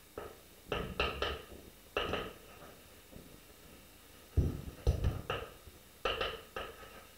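Chalk writing on a blackboard: irregular short taps and scratches as strokes are made, with a heavier cluster of knocks about four to five seconds in.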